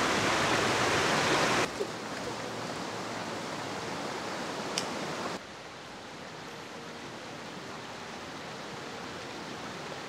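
Small forest brook rushing and splashing over rocks in little cascades, a steady rush of water. It is loudest for the first couple of seconds, then drops abruptly to a fainter rush about two seconds in and again about five seconds in.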